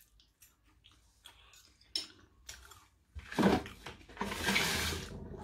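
Soft chewing and mouth clicks. About three seconds in comes a louder sound, then a long rushing sniff at the plate of currywurst and fries, lasting about a second.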